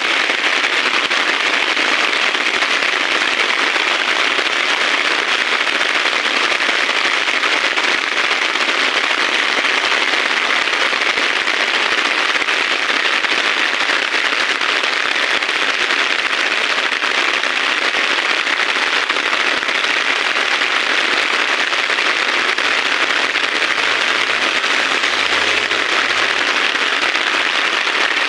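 Heavy rain pouring down, a steady dense crackling hiss of many drops hitting close by.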